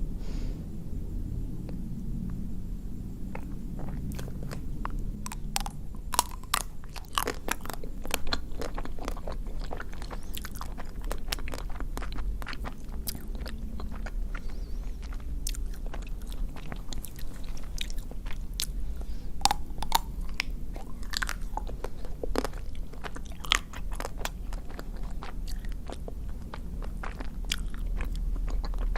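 Close-miked biting and chewing of a chocolate-coated ice cream bar, its hard chocolate shell cracking in many quick, sharp crackles that come thick and fast after the first few seconds.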